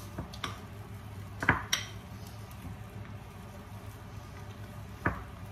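Metal potato masher pressing boiled potatoes in a glass bowl, with a few sharp clinks as it knocks against the glass, the loudest about a second and a half in. A low steady hum runs underneath.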